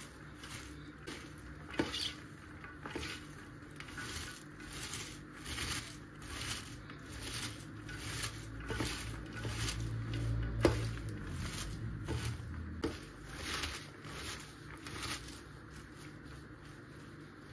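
Gloved hands kneading and rubbing shredded red cabbage in an enamel tray: a rhythmic crisp rustling and squishing, about two strokes a second. A few sharp clicks stand out, the loudest about ten seconds in.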